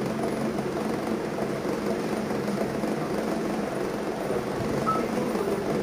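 A steady, unchanging low hum and rumble of background noise.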